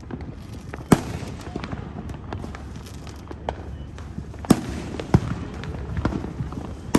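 Consumer fireworks going off around the neighbourhood: a sharp bang about a second in, two more around four and a half and five seconds, and another at the very end, with smaller pops between them.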